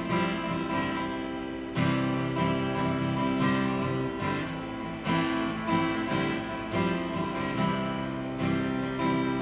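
Acoustic guitar strumming chords in a steady rhythm, solo with no voice. Strong strokes come every second and a half or so, with lighter strokes between and the chords ringing on.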